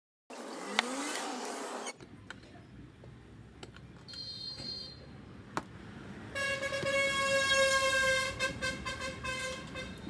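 Vehicle horn: a brief high toot near the middle, then a long honk held for about three seconds, over a steady rumble of traffic.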